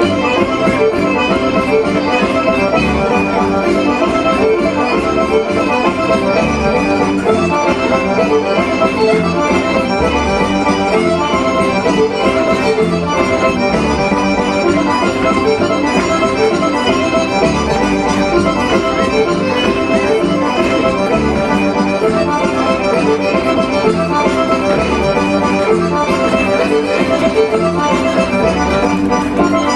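Accordion-led traditional folk dance music, steady and loud throughout.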